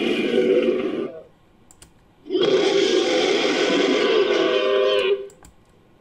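Made-up dinosaur roar for an Allosaurus–Spinosaurus hybrid, layered from dinosaur and monster roar samples. One roar ends about a second in. After a short pause a second, roughly three-second roar follows, trailing off in a falling note and cutting off near the end.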